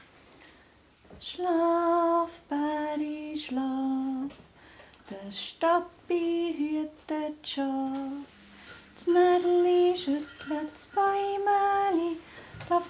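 A woman singing a slow melody in phrases of held, steady notes, starting about a second in.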